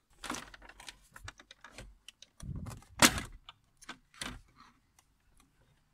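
Plastic steering-column trim on a BMW E46 being pried off with a plastic pry tool: a run of small clicks and scrapes, with one sharp snap about three seconds in as a trim latch pops loose.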